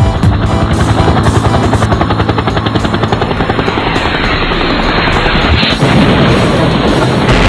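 Channel-intro logo sound effect: a dense, fast-pulsing fluttering noise that starts abruptly and changes character near the end.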